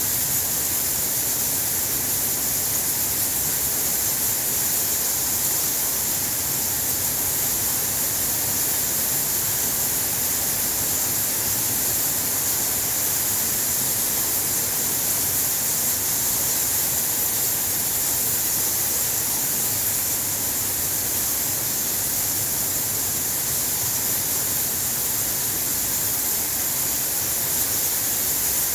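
Massed chatter of a huge bat colony roosting in a cave, blending into a steady high-pitched hiss that does not change.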